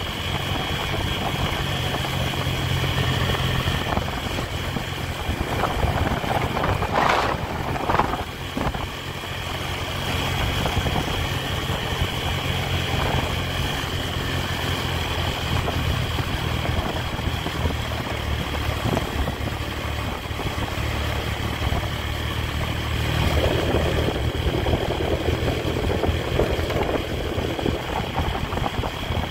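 Honda Tiger's single-cylinder four-stroke engine running steadily under way, with a low steady drone and road noise, and a passing swell in the second half.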